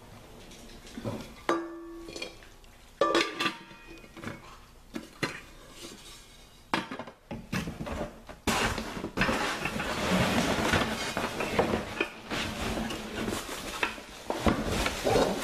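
Non-stick pans being handled: two sharp metal knocks with a brief ring about 1.5 and 3 seconds in, then from about halfway a long stretch of rustling and clattering as the next pan is pulled out of its cardboard box and packaging.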